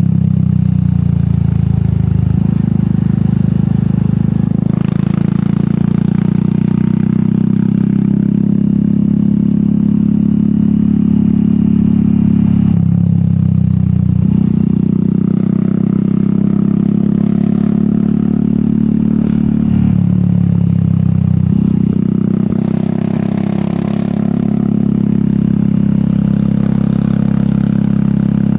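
Royal Enfield Meteor 350's single-cylinder engine running under way through an aftermarket sport exhaust. Its note steps in pitch a few times as the bike's speed changes.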